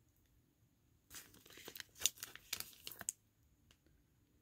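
Faint rustling and small clicks of Garbage Pail Kids sticker cards sliding against each other as they are flipped through by hand, starting about a second in and lasting about two seconds.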